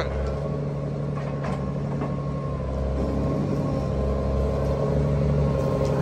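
Semi-truck diesel engine idling steadily, a low even hum that grows slightly louder after the middle.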